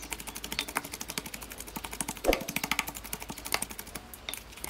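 Wooden pestle pounding wet curry paste in a clay mortar: a rapid, even run of dull knocks, several a second, as the paste is worked fine.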